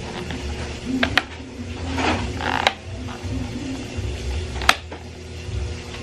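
Plastic parts of a table fan being fitted together by hand: sharp clicks about one, two and a half and four and a half seconds in, with a short scraping of plastic on plastic between the first two.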